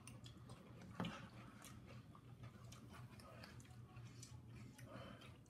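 Near silence: faint chewing of crunchy cereal with light scattered ticks and one sharper click about a second in, over a low steady hum.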